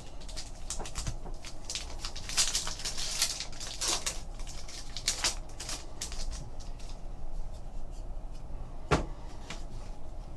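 Trading cards being handled: cards sliding, flicking and tapping against each other in a series of short crisp clicks and rustles, with a flurry a couple of seconds in and a sharper knock about nine seconds in.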